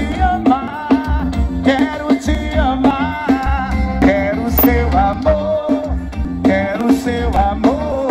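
A song with a singing voice, drums and heavy pulsing bass, played loud through a paredão, a truck-mounted wall of loudspeakers.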